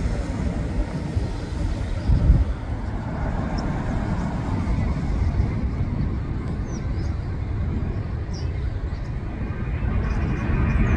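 Rumble of a twin-engine jet airliner climbing out after takeoff, mixed with wind buffeting the microphone. The engine noise grows near the end, and a few faint bird chirps sound in the second half.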